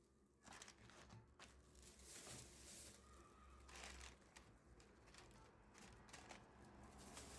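Faint rustling and a few light clicks, as of small things being handled and set down.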